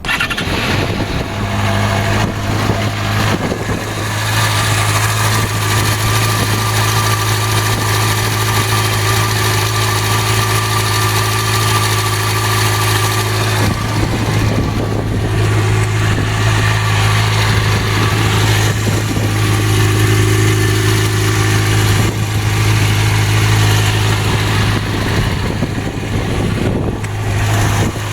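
Yamaha FZ6R inline-four motorcycle engine starting up and then idling steadily, run on its fresh oil to check for leaks.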